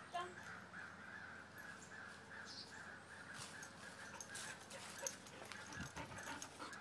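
A dog's faint, high-pitched vocalising, repeated in short pulses several times a second.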